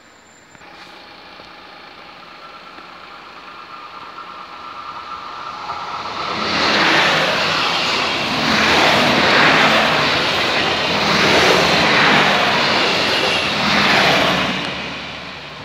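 Regional passenger train approaching and passing close by at a level crossing. The sound builds over the first several seconds, then a loud rushing of wheels on rails swells several times as the cars go past, and it fades near the end.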